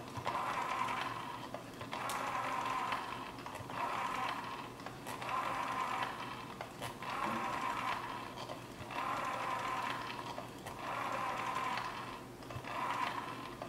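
Rotary telephone dial being dialled digit after digit. Each release lets the spring-driven dial run back with a whirring train of contact clicks that lasts about a second and a half and counts out one digit. The runs repeat about every one and a half to two seconds, around eight times.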